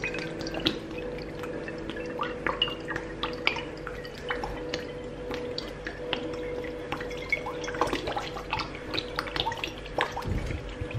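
Water poured from a plastic bottle onto grated coconut in a plastic basin, trickling and dripping in irregular splashes, as water is added to the coconut to press out coconut milk. A faint steady hum sits underneath.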